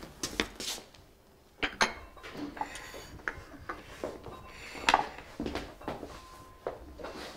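China teacups and saucers clinking and being set down on a table, a scatter of sharp clinks and knocks, the loudest about five seconds in.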